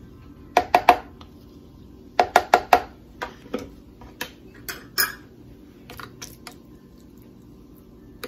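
Kitchen utensils tapping and clinking against a glass bowl and the plastic bowl of a food processor: a quick run of three sharp clinks, four more about two seconds in, then lighter scattered taps.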